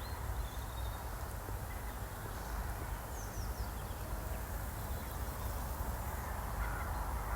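Quiet rural morning ambience: crows cawing in the distance and a few faint, short bird chirps over a steady low rumble and hiss.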